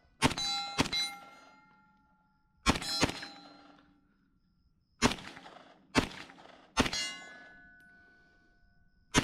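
Rifle shots fired in quick pairs at steel targets, seven in all, each crack followed by the clear ringing of struck steel plate that fades over about a second.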